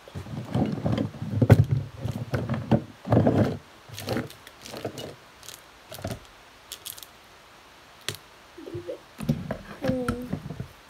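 Plastic tubs, cups and bottles being knocked and set down on a tabletop: a dense run of clattering thumps for the first few seconds, then scattered clicks, and a few more knocks near the end.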